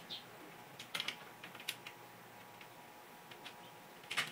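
Scattered light clicks and taps from the plastic front grille and its clips being worked loose, with a louder click near the end.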